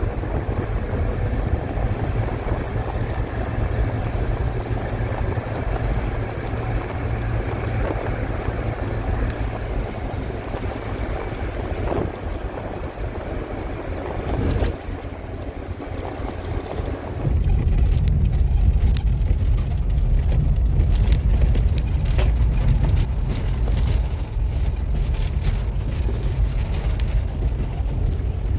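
Road noise inside a moving car's cabin: a steady rumble of engine and tyres. About two-thirds of the way through it changes suddenly to a louder, deeper rumble with scattered knocks and rattles, as the car runs on a rough dirt track.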